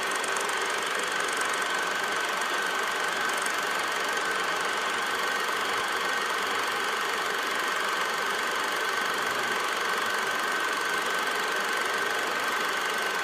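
Steady mechanical running noise: an even whir and clatter with a constant high whine.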